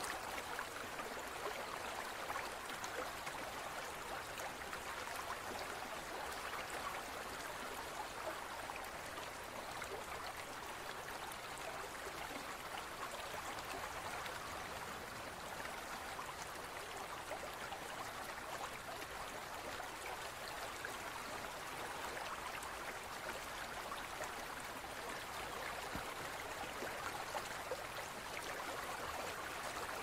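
Waterfall and stream water rushing steadily, an even splashing noise with no change.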